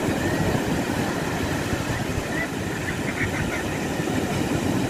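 Sea surf breaking and washing up a sandy beach in a steady rush.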